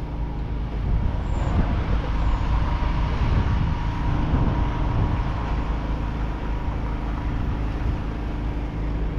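Massey Ferguson 6290's six-cylinder diesel engine running steadily, getting louder about a second in.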